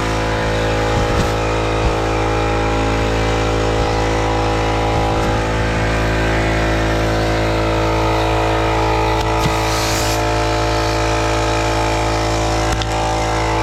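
A motor or engine running steadily at one unchanging speed, with an even, constant pitch throughout.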